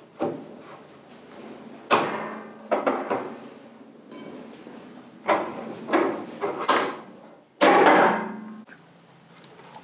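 Metal knocks and clunks from taking the front wheel off a Harley-Davidson Dyna Low Rider S: a series of sharp knocks with short ringing, then a longer, louder clatter about eight seconds in.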